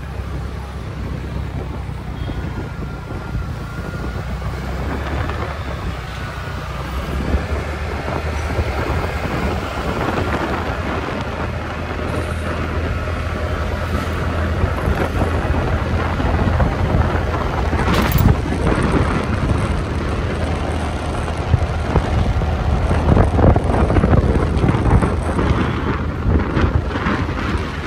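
Wind buffeting the microphone on a moving motor scooter, over the scooter's engine and street traffic: a steady rumbling rush that grows slowly louder as the scooter picks up speed. A single sharp click sounds about two-thirds of the way through.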